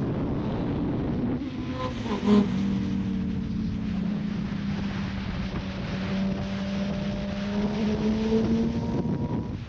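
Suzuki sportbike's inline-four engine running at cruising speed with wind rushing past, its note holding steady and then rising slowly in the second half as the bike speeds up.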